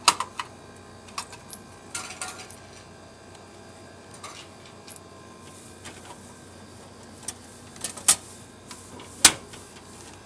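Coins clinking as change is taken from a vending machine's change return, with scattered sharp metallic clicks, the loudest two near the end.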